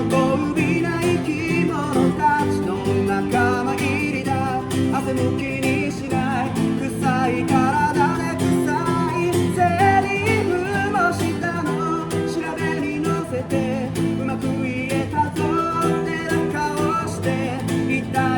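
Acoustic guitar strummed steadily in a folk song's instrumental passage, with a higher wavering melody line over it but no sung words.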